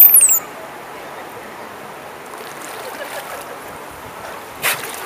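Bottlenose dolphin giving a single high whistle at the very start, sweeping up and then down in pitch. Steady rushing of the pool water follows, with a short burst of noise near the end as the dolphin surfaces by the pool edge.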